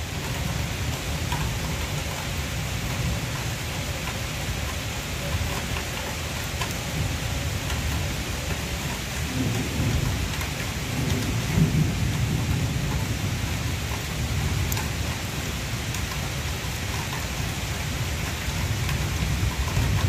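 Steady rain falling on trees and grass, an even hiss over a low rumble that swells slightly about halfway through.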